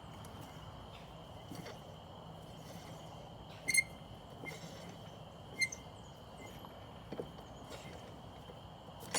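A few scattered, faint metallic clinks as the lug nuts and wheel come off a zero-turn mower's hub, with a steady high hum underneath.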